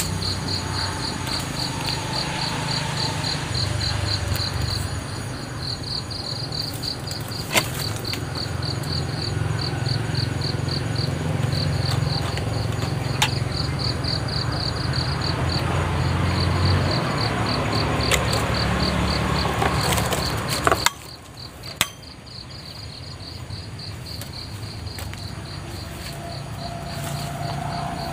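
An insect chirping in rapid, even pulses, over a low rumble that cuts off suddenly about three-quarters of the way through, with a few sharp knocks.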